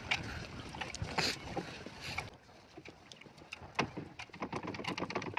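Fishing net being hauled by hand over the gunwale of a wooden outrigger boat: many short knocks and clicks against the wooden hull, with a louder rustling burst about a second in.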